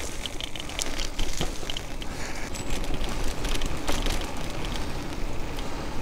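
Bicycle tyres rolling over a gravel track, with a steady rumble and a scatter of small crackling clicks from the grit.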